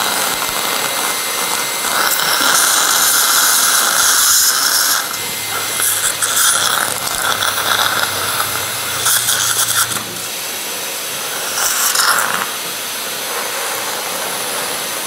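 Surgical suction hissing in irregular bursts during dental implant surgery, with the steady low hum of an implant drill handpiece's motor from about five to ten seconds in.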